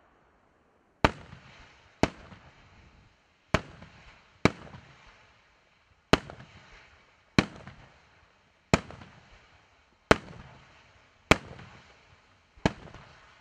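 Aerial firework shells bursting in sequence: about ten sharp bangs, one every second or so, each trailing off in a short fading rumble.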